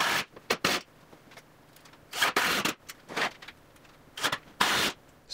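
A cordless drill driving screws through a plywood bracket into the rack's back panel, in several short bursts with quiet gaps between them.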